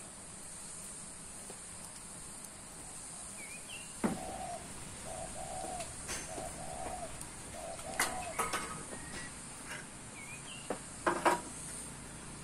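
Birds calling: a few short high chirps and a run of about five short, lower calls, over a steady high-pitched hiss. Several sharp knocks fall in the middle and near the end.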